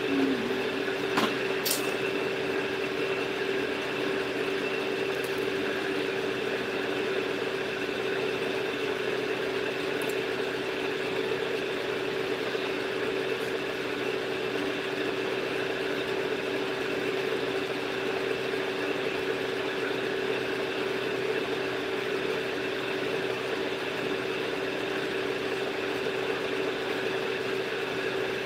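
Steady machine hum, a constant drone holding one fixed tone, with two sharp clicks about a second in.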